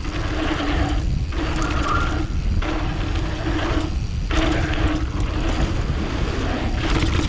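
Wind and tyre rumble on a helmet-mounted action camera during a fast mountain bike descent. The noise breaks off briefly three times.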